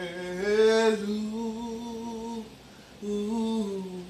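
An unaccompanied man singing two long held notes, the first rising into its pitch and the second falling away at the end, in a gospel style.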